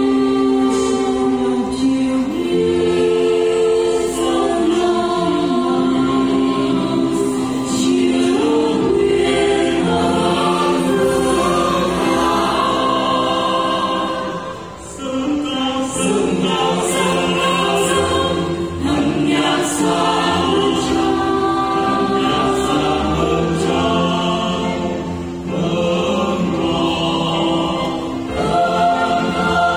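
Church choir singing a Vietnamese hymn to the Virgin Mary in long, sustained phrases, with a brief drop in level about halfway through.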